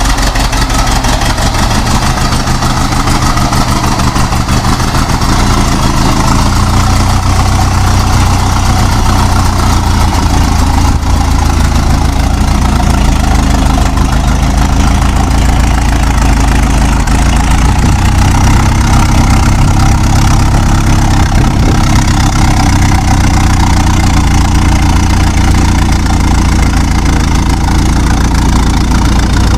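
Old car's engine running steadily at idle, a loud, continuous low rumble with a rough, uneven rattle.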